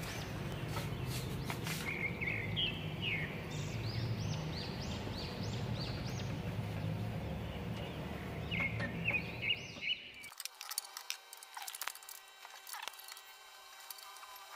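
Small birds chirping in runs of quick high calls, about two seconds in and again just before the ninth second, over a steady low outdoor rumble. The rumble cuts off suddenly near the end, leaving faint clicks and taps of hand tools on the car's underside.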